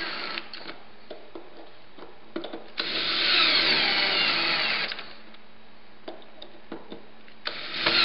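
Power drill/driver driving screws through a rope clamp into the rope in bursts. The motor whine runs briefly at the start, again from about three to five seconds in, and again near the end, falling in pitch as it slows. Light clicks and taps come between the bursts.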